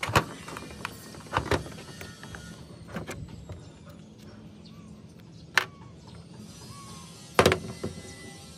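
Air-compressor head parts being handled on a metal workbench: about five sharp metal clinks and knocks as pieces are picked up and set down, the loudest near the start and near the end, over a steady low background hum.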